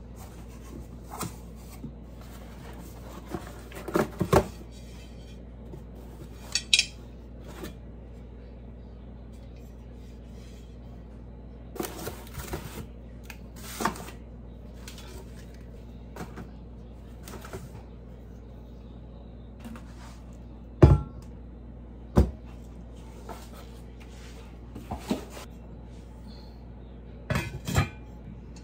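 A cast iron Dutch oven and its lid being handled while unpacked from a cardboard box: scattered knocks, clinks and cardboard rustles, with two sharp knocks close together past the middle and a few more near the end as the lid is set on the pot.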